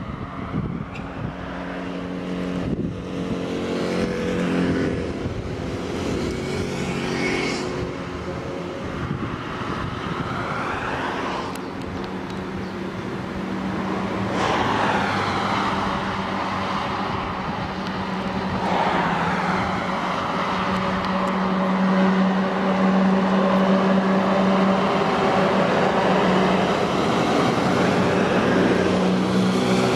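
A procession of old Eastern Bloc cars, motorcycles and an army truck driving past one after another. The engines run steadily, and the sound rises and falls as each vehicle goes by. A steady engine drone grows louder in the second half.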